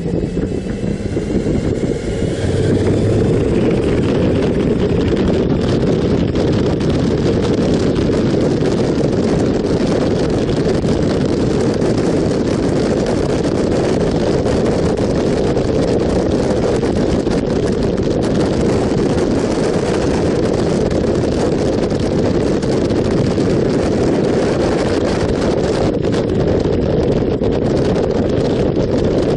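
Motorcycle riding at road speed: heavy wind rush over the microphone with engine and road noise beneath it. It swells about two seconds in and then holds steady.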